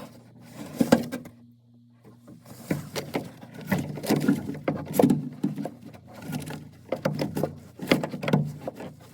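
Irregular knocks, clicks and rattles of parts being handled during washing machine repair work, with a brief quiet gap about a second and a half in.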